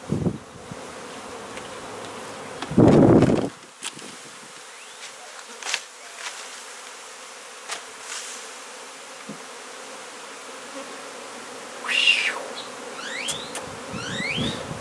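A colony of honey bees buzzing in a steady drone from a hive opened up in a wall. About three seconds in there is a brief loud rustle, and scattered clicks and a few short rising squeaks come near the end.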